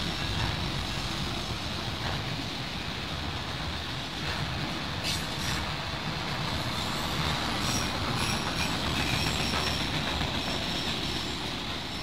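Freight train autorack cars rolling past: a steady rumble and rattle of steel wheels on the rails, with a faint high wheel squeal at times.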